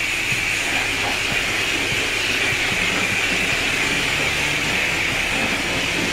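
Self-serve car wash high-pressure wand spraying soap solution onto a car's body: a steady hissing spray.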